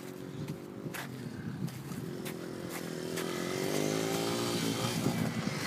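Dirt bike engine revving up and easing off as the bike rides over the track, getting louder as it comes closer.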